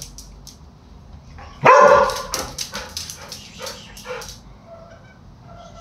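A dog barks once, loud and sudden, about a second and a half in, followed by a run of short clicks and a few faint whines.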